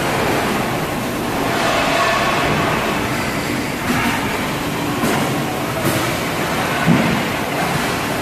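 Industrial conveyor dishwashing machine running: a steady, loud rush of water jets spraying inside the wash tunnel, with machine rumble and an occasional clunk.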